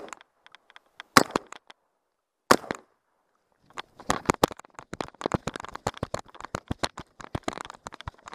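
Two shotgun shots, sharp loud cracks a little over a second apart. A few seconds in, a dense run of small crackles and snaps begins as dry scrub is brushed through on foot.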